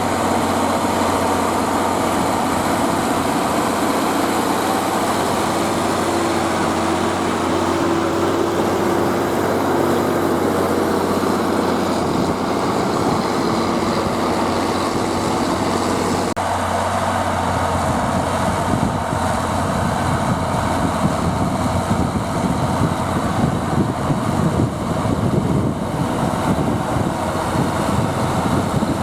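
Zetor Crystal 12145 tractor's six-cylinder diesel engine running steadily under load, pulling a five-furrow plough. About sixteen seconds in, a steady whine drops out and the engine note turns rougher and more uneven.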